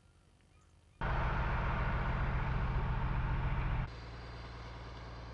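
A motor engine running steadily. It cuts in abruptly about a second in, then drops suddenly to a quieter, steady running sound near the end.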